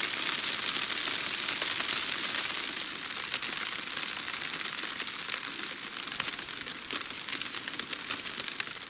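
Falling snow: a steady hiss with many fine, quick ticks as flakes land on the surroundings.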